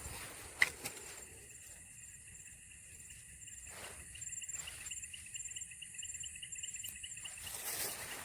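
Insect chirping in a fast, even series of short pulses, cricket-like, starting about a second in and stopping near the end. A single sharp click sounds just before it starts.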